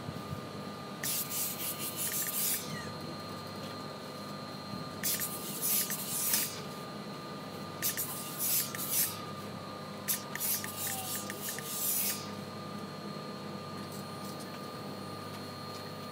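Hose-fed steam iron giving four hissing bursts of steam, each one to two seconds long, as a T-shirt is pressed, over a steady hum of the ironing equipment.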